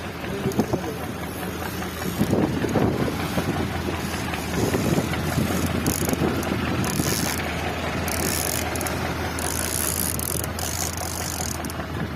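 Fishing boat's engine running steadily under wind and rushing water while a hooked fish is played on rod and reel; the reel whirs in short high-pitched bursts through the second half.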